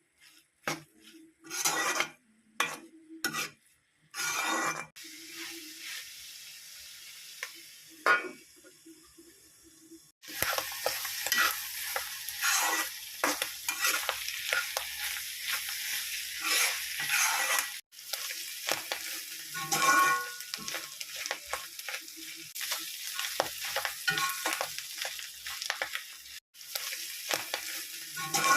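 Clam meat frying in a pan, sizzling loudly while a spatula stirs and scrapes it. The first ten seconds hold separate clinks and knocks of a utensil on the pan, and a fainter hiss. The loud sizzle begins about ten seconds in.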